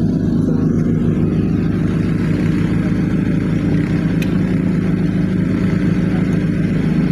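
A small combustion engine running steadily at a constant speed, with an even, fast pulsing throb.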